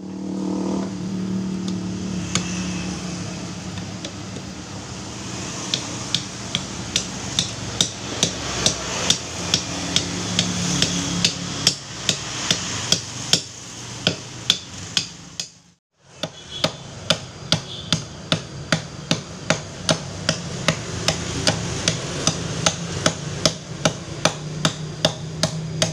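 A heavy chopping knife (golok) striking and shaving a sapodilla-wood sheath blank against a wooden block, in sharp chops about two to three a second, over a steady low hum. There is a short break about halfway through.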